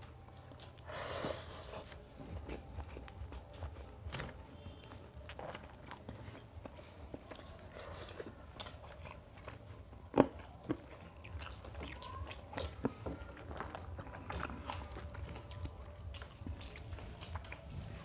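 Two people eating mutton biryani with their fingers: soft chewing, mouth smacks and small clicks as hands work the rice on the plates. There is one sharp click a little past halfway.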